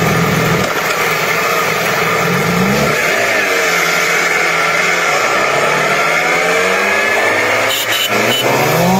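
Sport motorcycle engines running under way, the pitch climbing and dropping a couple of times as the bikes accelerate and change gear, over steady wind and road noise.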